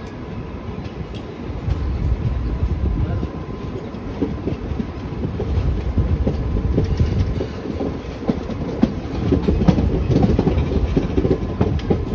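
Indian Railways passenger coaches rolling slowly through a station yard. The wheels clack irregularly over rail joints and points over a steady low rumble.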